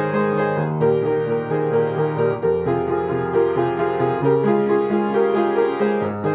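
Background instrumental music led by piano or keyboard, playing sustained chords that change every second or so.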